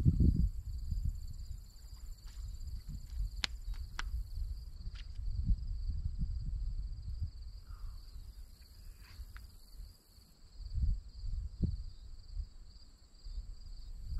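Wind buffeting the microphone: a low rumble that swells and fades in gusts, dipping briefly about ten seconds in. Over it runs a faint steady high buzz, and a few sharp clicks come around three to four seconds in.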